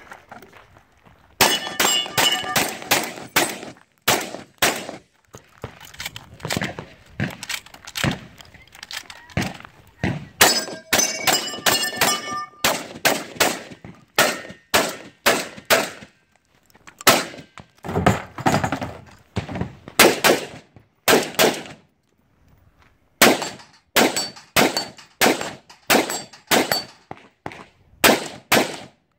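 Competition gunfire: rapid strings of shots, several a second, with short pauses between strings. In two strings, near the start and about ten seconds in, steel targets ring with a clear tone after the hits.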